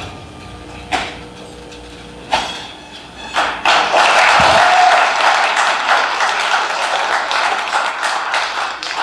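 Two heavy hits from a film trailer's soundtrack played through the hall's speakers, then a crowd breaks into applause about three and a half seconds in.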